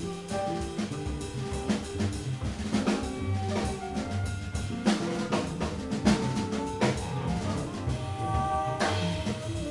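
Small jazz band playing live: the drum kit is busy and to the fore, over keyboard chords and a walking double-bass line.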